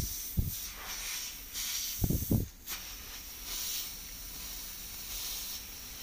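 A soapy sponge rubbed over a copper refrigerant suction pipe during a leak test: a wet hissing that comes and goes in patches, with a few low bumps near the start and about two seconds in.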